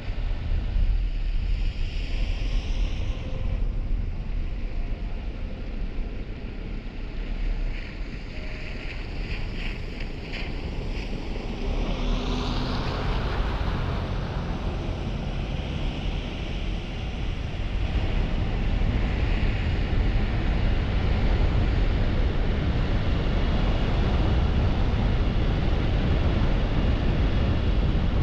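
Car driving on city streets: steady road and tyre noise with engine rumble and some wind on the microphone. There is a brief swell near the middle, and the noise grows louder and steadier about two-thirds of the way through.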